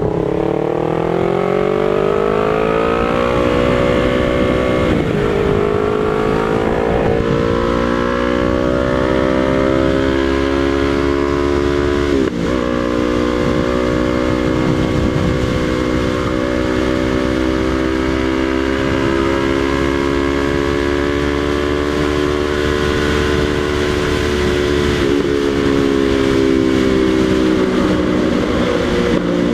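Yamaha MT-03 parallel-twin engine through a Jeskap exhaust with its dB killer removed, pulling hard under way. Its note rises over the first few seconds, breaks briefly at two gear changes, then holds a steady high pitch that eases slightly near the end.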